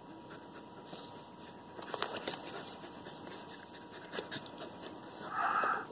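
A Hatchimal electronic toy creature in its egg, making a short breathy, panting burst of creature noise near the end, after a few soft handling taps and rustles on the plastic shell.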